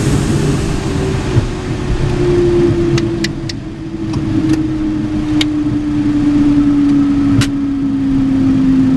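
Jet engines heard from inside the aircraft on short final: a loud, steady rush with an engine whine falling slowly in pitch as power is reduced. Several sharp clicks come in the middle.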